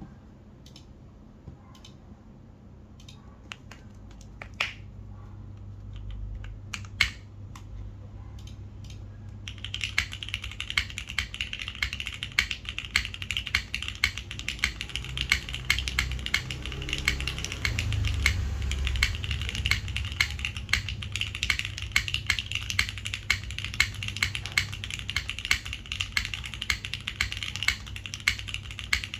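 Custom Neo60 Core mechanical keyboard being typed on, with lubed and filmed Cherry MX Hyperglide Black linear switches in an aluminium plate under GMK keycaps. A few scattered keystrokes come first, then fast, continuous typing starts about a third of the way in.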